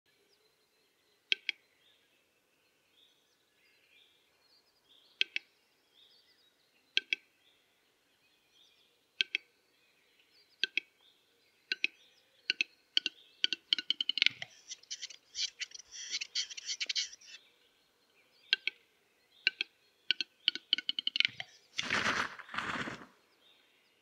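Male western capercaillie's display song: sharp clicks a few seconds apart that speed up into a rapid run, followed by about three seconds of hoarse scraping, the whetting phase. The clicking then starts again, and near the end comes a louder rushing sound lasting about a second.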